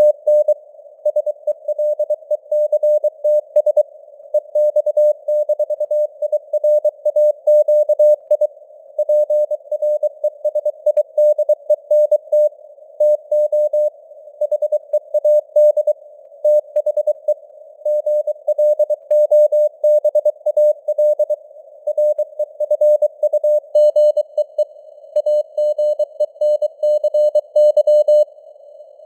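Morse code news sent at 23 words per minute: a single steady beep keyed on and off in dots and dashes, with short pauses between words. It sits over a faint simulated radio-band hiss, and the keying stops near the end.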